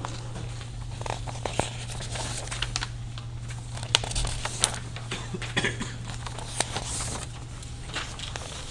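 Sheets of paper rustling and crinkling as handouts are passed around and handled, with scattered light clicks and knocks, over a steady low hum.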